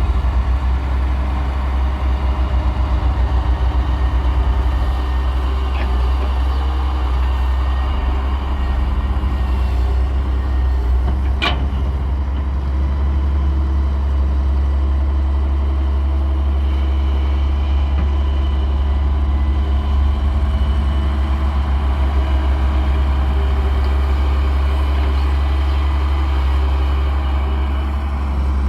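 Heavy diesel engine of earthmoving machinery running steadily with a deep, even drone. A single sharp click cuts through about eleven seconds in.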